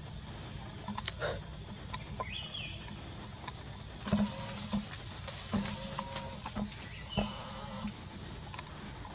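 Forest ambience: a steady high insect drone, short animal calls and chirps, and several sharp snaps scattered through the scene.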